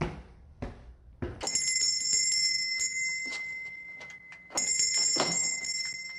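Footsteps, then a small shop-door bell rings: struck about a second and a half in and again about three seconds later, each ring held and slowly fading.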